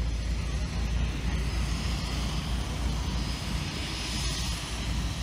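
A propeller floatplane's engine runs steadily, and the sound swells about four seconds in.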